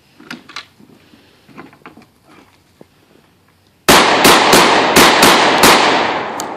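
Light wooden knocks and handling sounds at the bench, then about four seconds in, six gunshots fired in rapid succession in under two seconds, each ringing out with echo.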